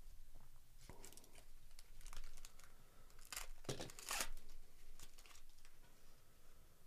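Foil wrapper of a 2024 Topps Series 1 baseball card pack being torn open and peeled off the cards, in a series of short crinkling crackles, loudest about three and a half to four seconds in.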